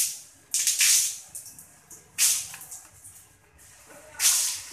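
Three short bursts of hissing noise, each about half a second long and about two seconds apart, coming from around the work area.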